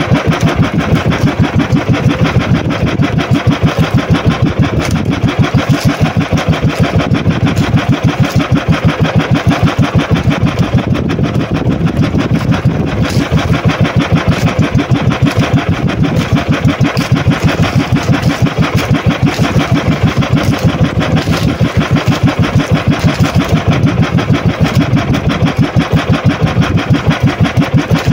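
Outrigger boat's small engine running steadily, with an even, rapid exhaust beat.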